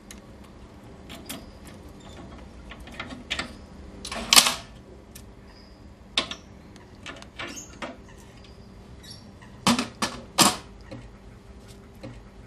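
Metal clicks and clanks from the hinged sheet-metal lid and wire handle of a fish-holding box being worked by hand, irregular, with the loudest knocks about four seconds in and a cluster of three near ten seconds in.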